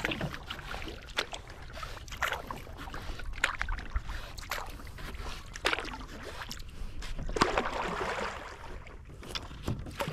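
Kayak paddle strokes: the blades dip and splash into the water about once a second over a steady wash of water, with one longer splashy stroke near the end.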